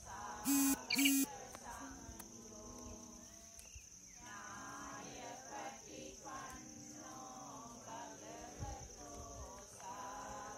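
A steady high drone of insects in the forest, with people's voices going on underneath. Two short, loud, flat-pitched honks come in quick succession about half a second and a second in.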